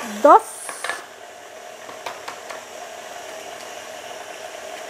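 KitchenAid Artisan stand mixer running at a steady speed, its motor humming evenly with a single constant tone as the beater creams a cake batter in the steel bowl.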